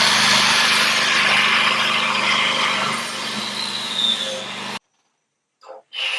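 Electric power tool running steadily on the boat's hull, a loud gritty noise over a low motor hum, then cutting off suddenly almost five seconds in.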